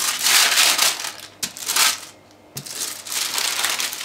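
Sheet of baking paper rustling and crinkling under the hands as it is rubbed with a block of butter. The noise comes in a few bursts with a short pause about halfway through.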